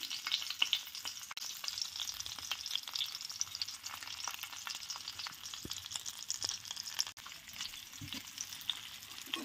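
Small sardines coated in a chilli, turmeric and cornflour masala shallow-frying in oil on a tawa, sizzling steadily with dense fine crackling.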